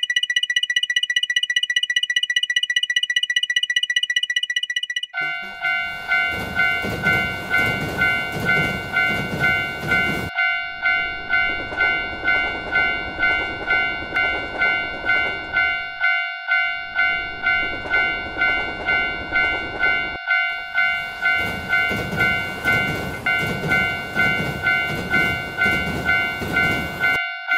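Japanese railroad crossing warning bells. A rapid, high-pitched electronic ding plays for about the first five seconds. A lower bell then dings about twice a second over the rumble of passing trains. The rumble breaks off briefly a few times, and all of it stops just before the end.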